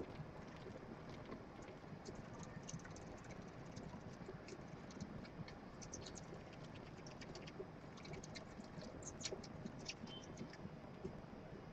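Dwarf hamster's claws scratching and tapping against a wall as it stands in a sand bath, a fast, irregular patter of faint clicks over a steady low hiss. A few louder clicks come about nine to ten seconds in.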